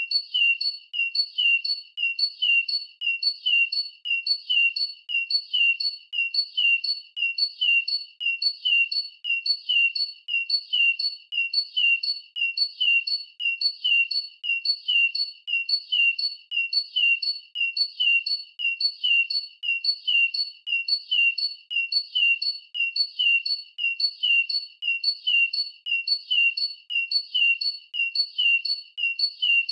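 Bird chirp sound effect: short high-pitched chirps repeating at an even pace of about three a second, every chirp alike.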